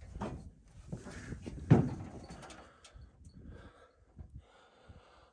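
Footsteps and scuffs on rocky ground while walking around a wreck, with one loud thump a little under two seconds in.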